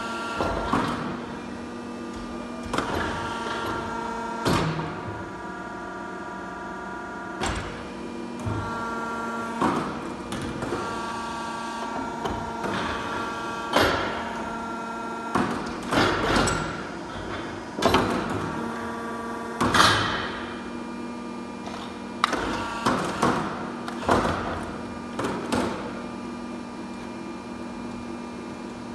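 Pipe-bending machine working a steel tube: a steady machine hum with a whine that cuts in and out in stages as the bend runs, broken by repeated sharp metallic clanks and knocks from the tube and the machine's clamps.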